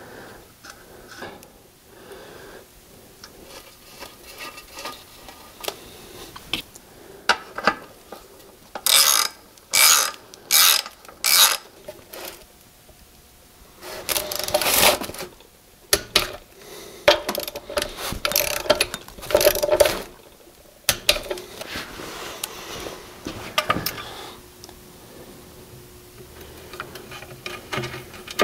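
Socket ratchet clicking in short runs of strokes as nuts are run down onto oil cooler cover studs, with small metal clinks of tools and parts between the runs.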